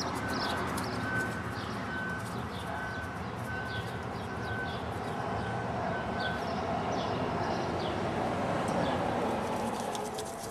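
Outdoor city ambience: a steady hum of distant traffic with birds chirping. For the first six seconds or so there is also a short electronic beep repeating at an even pace.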